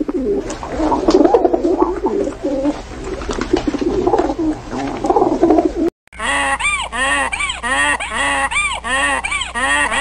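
A flock of pigeons cooing in low, warbling calls. After a short break about six seconds in, a donkey brays in a fast run of calls that rise and fall, about two a second.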